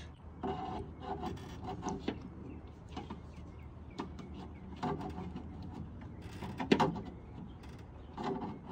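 Needle-nose pliers working at the plastic trim clips and trim panel on the underside of a 2014 Toyota Camry's trunk lid, giving scattered clicks and knocks. The sharpest knock comes about two-thirds of the way through.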